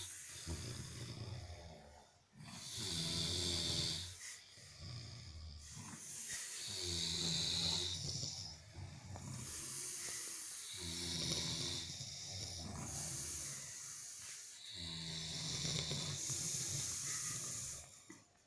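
Snoring in a steady rhythm: a low, rattling snore with a hiss in it, repeating about every four seconds.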